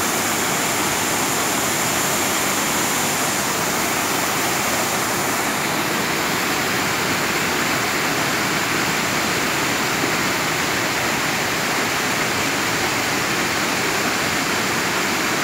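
Diyaluma Falls, a tall waterfall in heavy flow, giving a steady, unbroken rush of falling water.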